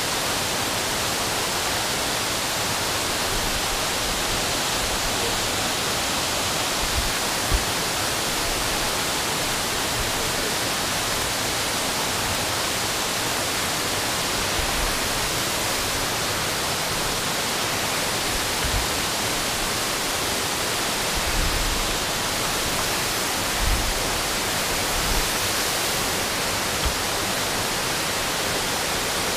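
Steady rush of creek water, an even hiss, with a few soft low thumps scattered through it.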